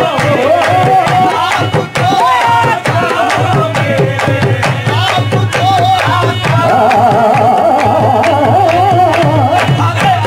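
Qawwali music: a singer holds a wavering, ornamented melody over a steady drone and a rhythmic hand-drum beat.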